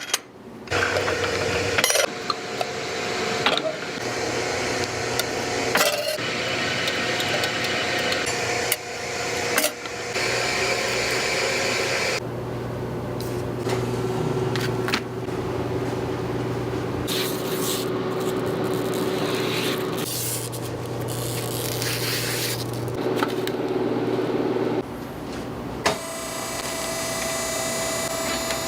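A string of workshop tool and machine sounds that change abruptly every few seconds: a steady machine hum, small metal knocks and clinks, and a buzzing motor near the end.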